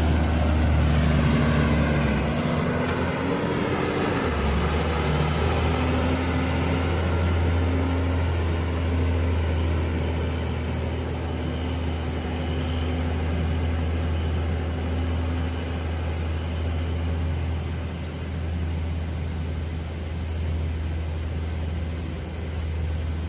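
Diesel engine of a loaded LPG tanker truck pulling away up the road, its note rising for a couple of seconds and then holding as it draws off and slowly fades, over a steady low rumble.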